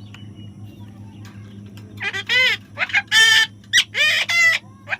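Parrot giving a run of loud, harsh squawks, starting about two seconds in, each call about half a second long, over a steady low hum.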